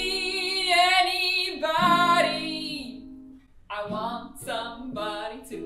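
A woman singing long held notes over acoustic guitar strumming. The singing dies away about three seconds in, and a few short vocal phrases follow near the end.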